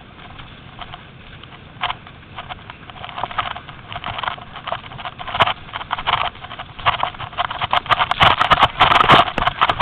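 Footsteps crunching on a gravel and dirt path, a quick uneven series of steps that comes faster and louder over the last couple of seconds.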